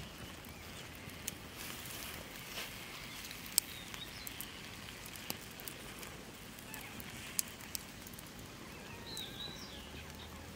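Wood campfire crackling, with scattered sharp pops from the burning sticks and embers over a steady outdoor hiss; the loudest pop is about three and a half seconds in.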